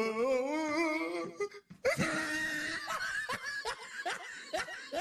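A person's stifled laughter, many short laughs in quick succession, over music. It opens with a held, wavering pitched tone that breaks off about a second and a half in.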